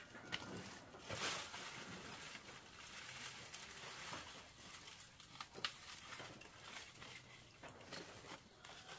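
Faint irregular rustling and crinkling handling sounds, with a few sharp clicks or knocks scattered through it.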